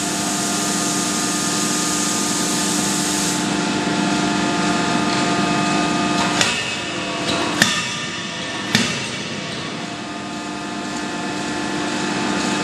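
Anyang CNC die forging hammer striking a hot workpiece in a closed die: three sharp blows a little over a second apart, the middle one loudest. Under them runs the steady hum of the forging line's machinery, and a hiss stops about three seconds in.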